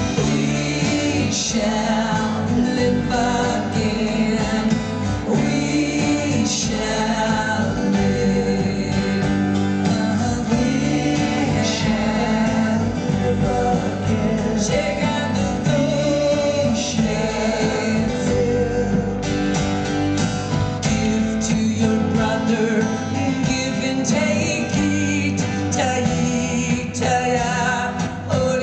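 A live rock band performing, with a woman singing lead over strummed acoustic guitar, electric guitar and drums. It is heard as a distant concert recording from the audience.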